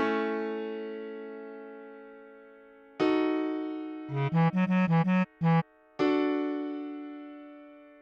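Synthesized electric-piano-style accompaniment: a held chord fading out over about three seconds, a second chord about three seconds in with a quick run of short low melody notes, then a third chord fading away near the end.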